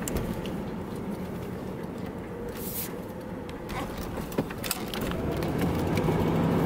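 Engine and road noise heard inside the cabin of a 1988 Buick Electra Estate wagon with its 5.0-litre Oldsmobile V8, driving at low speed: a steady low hum that grows louder about five seconds in. A couple of light clicks come just after four seconds.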